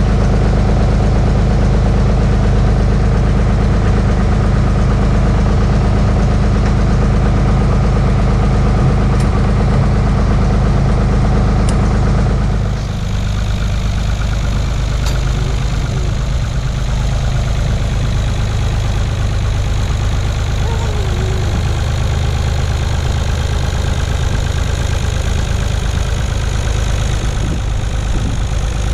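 Allis-Chalmers 5050's three-cylinder diesel engine running steadily at low speed, with no revving. About 13 seconds in the sound changes abruptly and the engine is heard from farther off.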